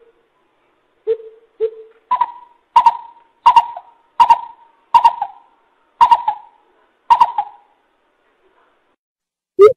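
Coucal (bubut) calling: two lower hoots, then a run of about eight louder, higher hoots spaced under a second apart, each trailing a short echo. A fast series of low hoots starts again right at the end.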